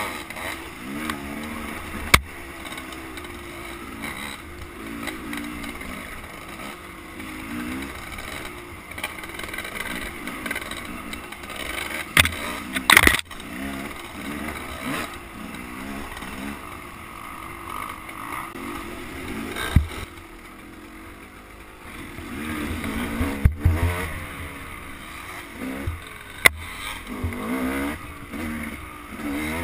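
Off-road dirt bike engine revving up and down repeatedly while riding a rough trail. Sharp knocks come from the bike-mounted camera jolting over bumps, the loudest about 13 seconds in.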